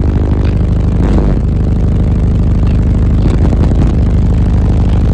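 A 10,000-watt car-audio subwoofer wall playing bass very loud inside the truck's cab, a continuous deep low end with no break.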